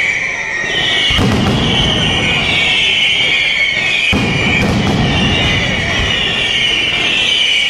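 Mascletà firecrackers going off in a dense, continuous barrage, with many whistling fireworks shrieking over it. The barrage surges about a second in and again at about four seconds.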